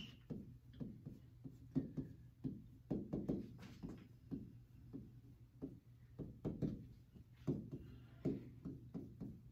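Light, irregular taps and short strokes of writing on the glass screen of an interactive touchscreen whiteboard, a few per second, as words are written out by hand.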